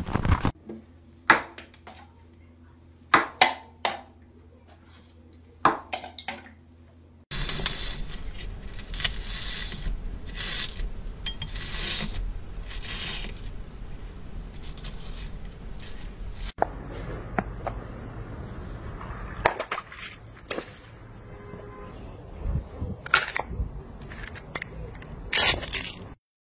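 Close-miked crushing of crumbly material, in separate clips: a few sharp crisp cracks, then a long loud stretch of dense crunching and crumbling, then scattered sharp clicks.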